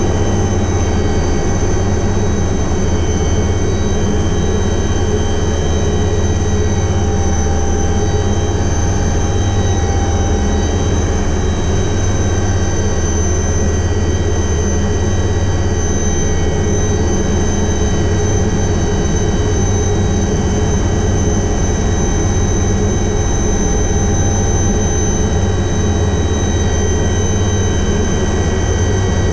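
Alouette III helicopter running steadily: a constant high turbine whine from its turboshaft engine over a heavy low rotor drone, with no change in pitch or level.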